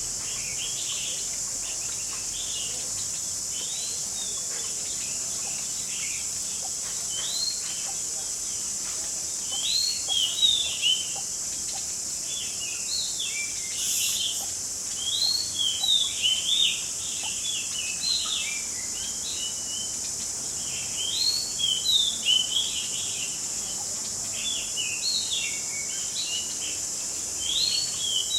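Small songbird calling in quick bouts of short rising and falling chirps, starting about ten seconds in and recurring several times, over a steady high-pitched hiss.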